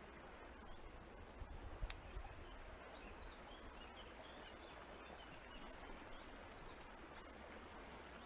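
Faint, steady rush of a shallow stream, with one sharp click about two seconds in and a few faint bird chirps.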